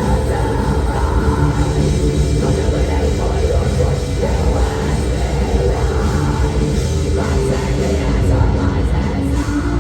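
A live heavy metal band playing loud and without a break, led by distorted electric guitar over bass and drums.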